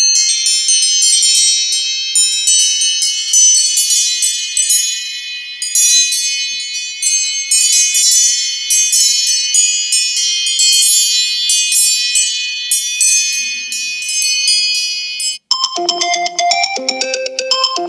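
Apple iPhone ringtones playing. A bright, high chime melody of quick bell-like notes cuts off suddenly about fifteen seconds in. The next ringtone then starts, with lower notes in a repeating rhythm.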